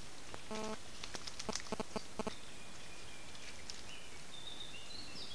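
Wild boar (Sus scrofa) with piglets foraging: one short pitched grunt about half a second in, then a run of quick clicks and snaps from rooting and moving in the mud. Faint high whistling calls come in over the steady hiss in the second half.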